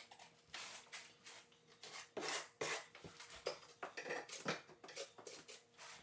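Steel trowel scraping thinset mortar across a plywood subfloor, its flat side keying the mortar in with short, irregular strokes. Faint, with the strongest strokes a little over two seconds in.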